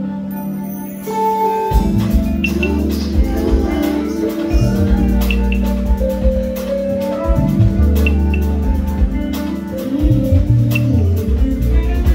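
A live band playing on stage. Low bass notes and drums come in strongly about two seconds in, over held chords.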